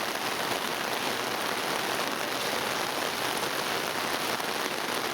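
Heavy monsoon rain falling steadily, a dense even hiss of drops.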